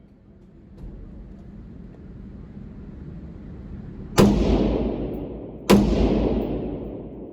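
Two rifle shots about a second and a half apart, each with a long echoing tail that dies away over more than a second.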